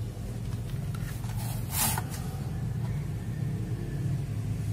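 Steady low electrical hum, with one short rustling scrape of something being handled just before two seconds in.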